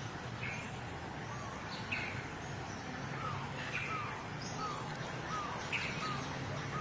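Birds chirping: short scattered calls, and from about halfway in a run of brief falling notes about two a second, over a steady low background hum.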